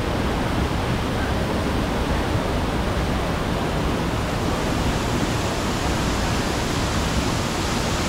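Steady rush of a fast, shallow river running over rocks and stones.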